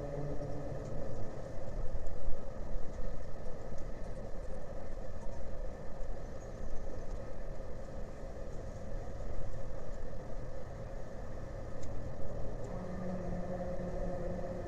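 Engines running at idle: a low steady engine hum that fades out after the first second or so and comes back near the end, over an uneven low rumble.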